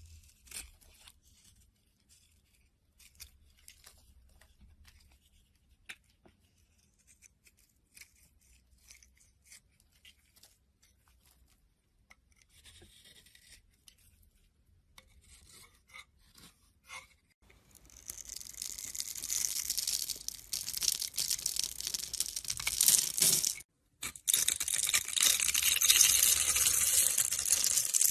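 A blade cutting through a bar of soap. At first there are scattered faint scrapes and clicks; from about two-thirds of the way in, a loud, dense scraping runs on, broken once by a short pause.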